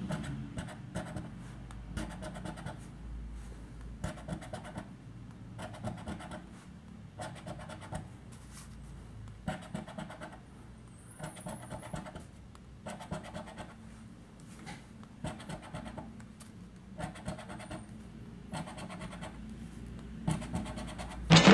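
A coin scraping the silver coating off a paper scratch card in short, repeated strokes with brief pauses between them.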